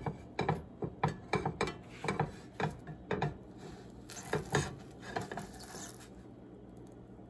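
Plastic slotted spatula scraping and knocking against a nonstick frying pan in a quick irregular run of strokes as it works under a pancake to flip it; the scraping dies away after about five seconds.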